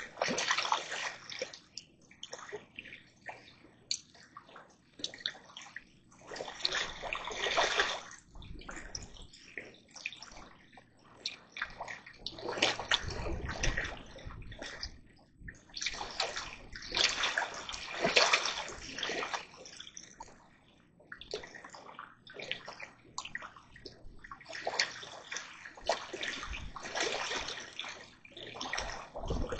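Water splashing and sloshing in irregular bursts, each lasting a second or two.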